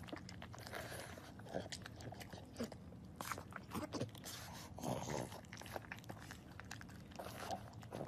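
A pug eating macaroni and cheese (Kraft Dinner) from a bowl: a quick, irregular run of wet chewing smacks and clicks.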